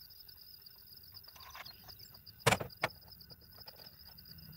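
Insects trilling steadily in a high, finely pulsing tone, with two sharp clicks a third of a second apart about two and a half seconds in.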